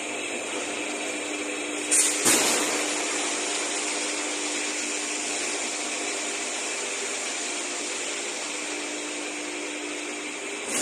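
Plastic sheet extrusion line running: steady machinery noise with a constant hum, and two sharp knocks in quick succession about two seconds in.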